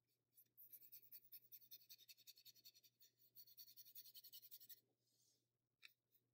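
Watercolour paintbrush brushing paint back and forth on paper in quick, faint, scratchy strokes for about four seconds, then a softer swish and a small tick near the end.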